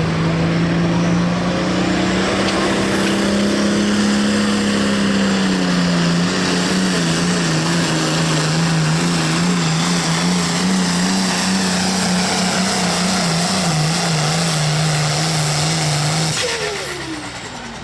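Limited pro stock pulling tractor's turbocharged diesel engine running flat out under the load of the sled, its pitch wavering as it pulls. About sixteen seconds in the throttle is cut and the engine winds down.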